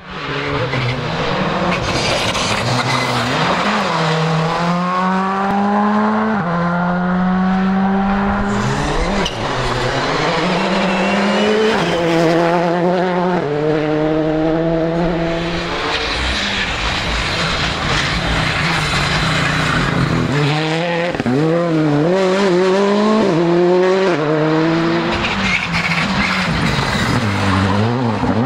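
Rally cars at full speed on gravel: engines revving hard and shifting up through the gears in quick steps, with stretches of revving up and down between shifts, over a constant noise of tyres on loose gravel.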